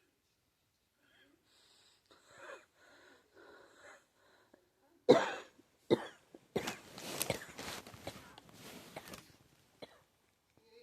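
A person coughing, which the uploader attributes to pneumonia. A few faint short sounds come first, then a single loud cough about five seconds in, another a second later, and a run of repeated coughs lasting about three seconds.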